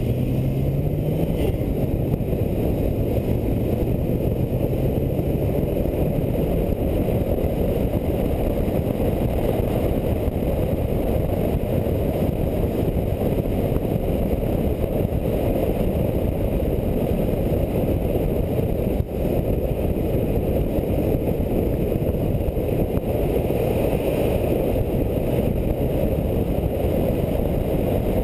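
Toyota Celica GT-Four ST205 driving, heard from a camera mounted on its roof: a steady, heavy rumble of wind and road noise. The engine note of its 3S-GTE turbo four-cylinder rises in about the first second, then holds for a few seconds before it is lost in the rumble.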